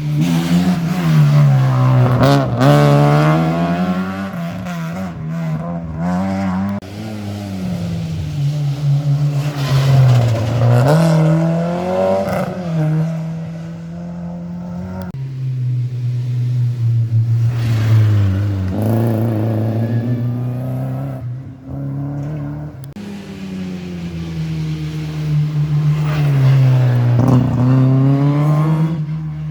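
Rally car engines revving hard through the gears on a special stage, their pitch climbing and dropping again and again, swelling and fading several times as cars go by, with a few sharp cracks.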